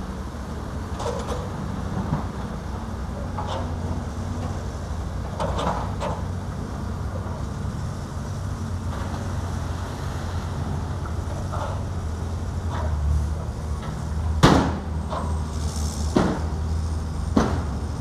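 Diesel engines of a Caterpillar hydraulic excavator and dump trucks running steadily as a low rumble, with three sharp knocks in the last few seconds, the first the loudest.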